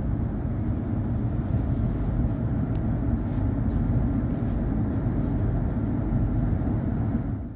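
Steady running rumble of a Class 75E electric multiple-unit train, heard inside the passenger cabin, with a few faint light ticks.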